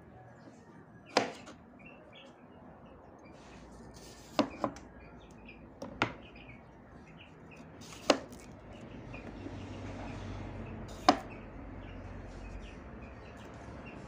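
A kitchen knife knocking against a wooden cutting board while bitter melon is split and cut: about six sharp knocks at irregular intervals, two of them in quick succession.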